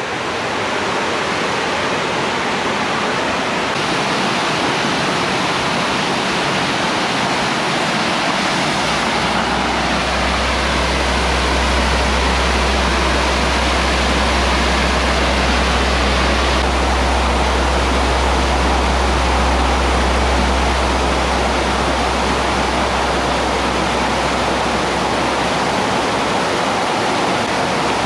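Waterfall pouring, a loud, steady rush of falling water. A deep low rumble joins in about a third of the way through and fades near the end.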